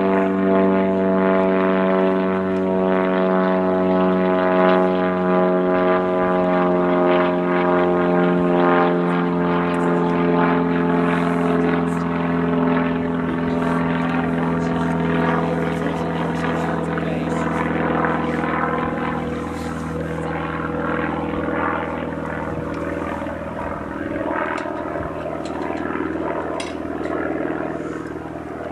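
Propeller-driven light aircraft's engine droning overhead, its pitch falling slowly and steadily, and growing a little fainter in the last third.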